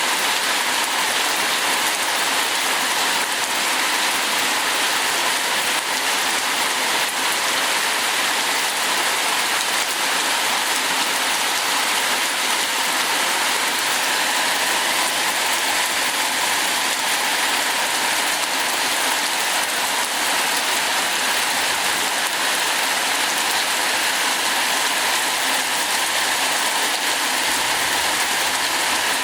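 Heavy rain falling steadily: a dense, even hiss of many drops with no let-up.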